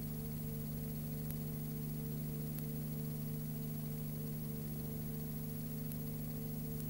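Steady electrical hum with an even hiss and a few faint clicks: the noise of the film transfer, with no sound from the scene itself.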